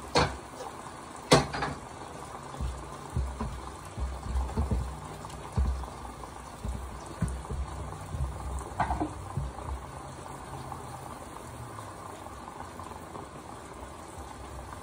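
Hot cast-aluminum ingots quenching in a tray of water that is already hot: the water bubbles and pops in fits, with a couple of sharp cracks in the first two seconds. The bubbling thins out after about eight seconds.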